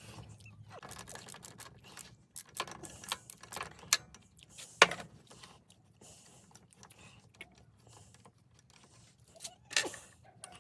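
Irregular metallic clicks and knocks of hand tools and parts being handled during repair of a walk-behind tractor, with a sharp knock about five seconds in.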